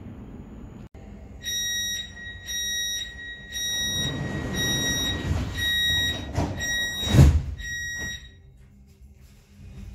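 Door-closing warning beeper on a Siemens C2 Munich U-Bahn train, sounding a high beep over and over for several seconds while the doors slide, with a loud thud as the doors shut about seven seconds in.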